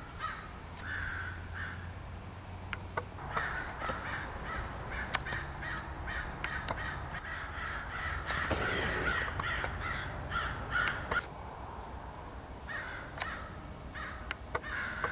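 A group of crows cawing over and over, many harsh calls overlapping, as they mob a great horned owl. The calling thickens in the middle, drops off briefly about eleven seconds in, then picks up again.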